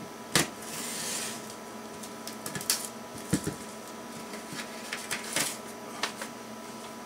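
Bubble wrap and cardboard packaging being handled as steel plates are unpacked from a box: crinkling and rustling with many scattered sharp clicks, and a duller knock a little after three seconds in.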